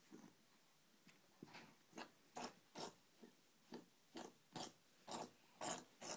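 Pet rabbit sneezing over and over: a run of about a dozen short, sharp puffs, roughly two a second, some coming in quick pairs.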